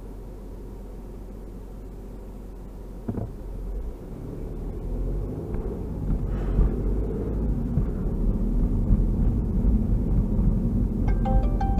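Car engine and road noise inside the cabin, heard by a dash cam: a steady low rumble while stopped, a knock about three seconds in, then the rumble growing steadily louder as the car pulls away and gathers speed. A few chime-like musical tones begin near the end.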